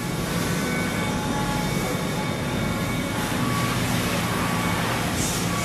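Steady mechanical din of factory machinery, with a few faint tones coming and going.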